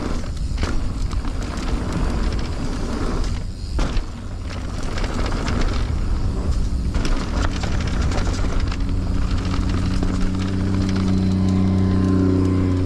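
Mountain bike rolling fast down a dirt trail: continuous tyre noise and wind buffeting on the handlebar mic, with the bike rattling and knocking over bumps. A steady low hum comes in for the last few seconds.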